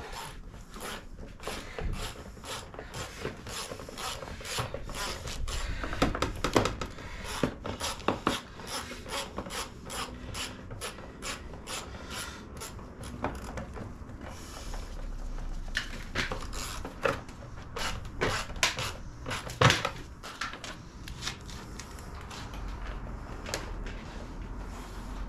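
Quick runs of clicking and clattering from hand tools and parts on a Suzuki RM65 dirt bike's engine while it is put back together, with two louder knocks about six and a half and twenty seconds in.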